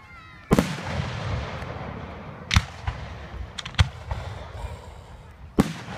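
Aerial fireworks shells bursting overhead: five sharp booms. The loudest comes about half a second in, then one at about two and a half seconds, two close together near four seconds, and one near the end. Each leaves a rumbling echo.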